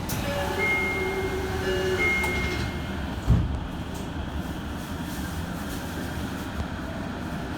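Tokyo Metro 07 series subway train running, heard from inside the car just after pulling out. A few held tones sound in the first two and a half seconds, and a single loud thump comes about three seconds in.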